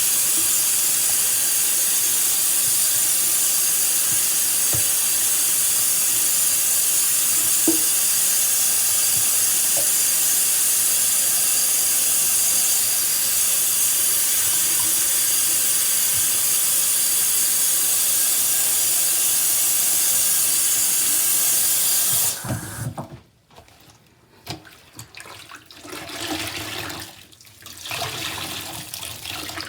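Tap water running steadily onto a sponge, cutting off abruptly about 22 seconds in; after that, quieter, uneven wet sounds of the soaked sponge and dripping water.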